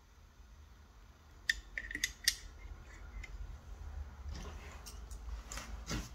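Sharp little clicks and clacks of a prototype board being handled and clamped into a helping-hand's metal clip, a quick cluster about one and a half to two seconds in, then soft rustling with a few more light clicks near the end.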